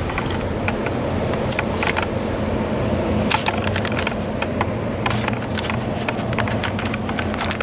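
Steady rumble of wind and city noise, with scattered short, sharp clicks and crackles every second or so.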